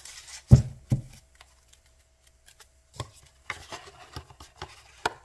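Tarot card decks and their cardboard boxes being handled on a cloth-covered table: two dull knocks as a deck and box are set down about half a second in, then light rustling and small taps as the boxes are picked up and opened near the end.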